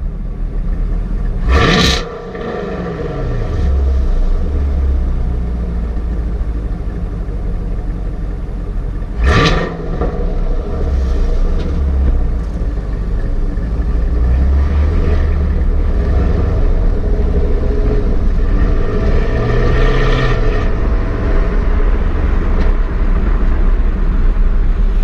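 Stock exhaust of a 2017 Camaro 1SS's 6.2-litre V8 idling, blipped twice with short, sharp revs about seven seconds apart, the pitch falling back to idle after each.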